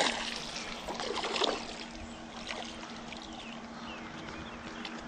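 Water splashing and trickling, with two louder splashes in the first second and a half as a hooked fish is brought in at the surface, then softer dripping and lapping over a faint steady hum.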